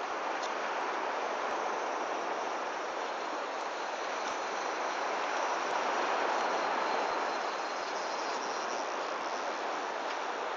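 Steady rushing ambience of sea surf and wind on an open beach, swelling slightly about six seconds in.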